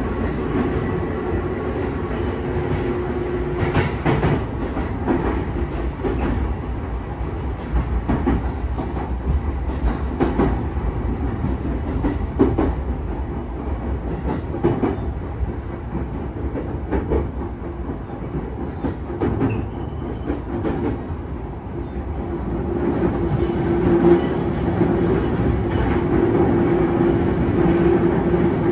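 Cabin of a JR East E233-0 series electric train running on jointed rail: wheels clack over the rail joints about every two seconds over a steady running rumble. A steady tone grows louder over the last few seconds.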